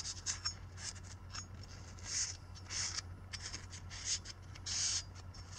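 A cloth wiping oil off the gasket surface of a Kawasaki KLX140 cylinder: a few short, soft rubbing strokes with light clicks.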